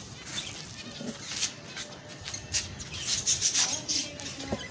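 Caged finches and other small aviary birds giving scattered short chirps, with some rustling.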